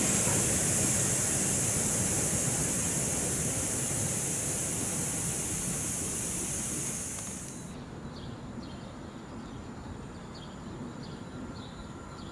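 SM42 diesel locomotive and its train of hopper wagons rolling away: a low rumble with a steady high hiss over it, slowly fading. The sound cuts off abruptly about eight seconds in, leaving a quieter background with faint, repeated high chirps.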